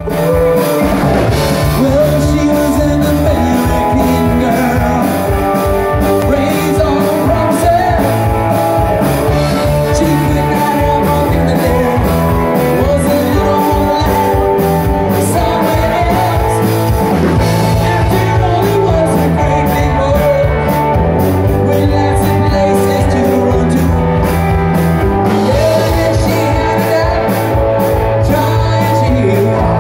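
Live rock band playing loudly: a singer over electric guitars and a drum kit.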